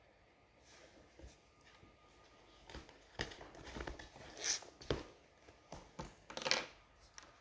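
Quiet room with scattered short rustling and crinkling noises, a handful of sharper ones in the second half.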